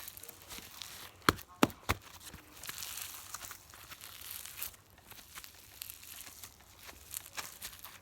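Hands kneading and stretching slime, with a crackly, sticky rustle and three sharp pops close together about a second in, then a few more small pops later.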